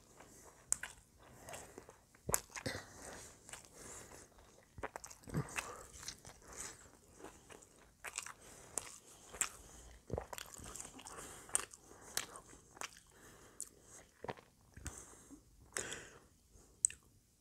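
Close-miked chewing of French fries, with irregular sharp clicks and crunches of the mouth and teeth.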